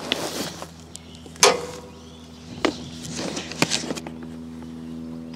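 A few sharp knocks and clatters of handling around the mower, the loudest about a second and a half in, over a faint steady low hum.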